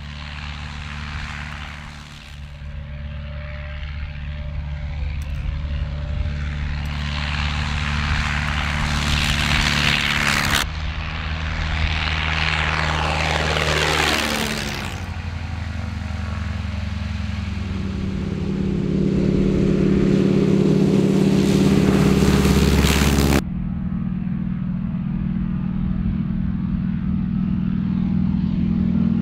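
Piston-engined propeller aircraft flying low past, a steady engine drone that grows louder, with a falling pitch as one sweeps by about halfway through. The sound changes abruptly twice, and near the end it is the radial engine of a North American Harvard trainer close by.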